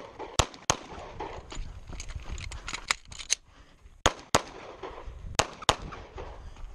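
Semi-automatic pistol fired in a string of shots, mostly in quick pairs about a third of a second apart, with a few fainter shots between them: double-taps on each target during a practical shooting stage.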